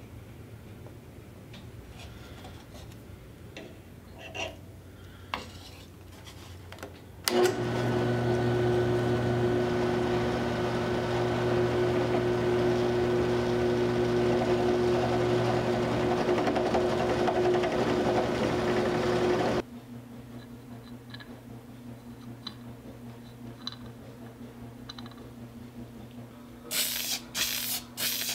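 Bench drill press switched on about seven seconds in, its motor running with a steady hum for about twelve seconds before it stops abruptly. Light clicks of handling before it, and a few short hissing bursts near the end.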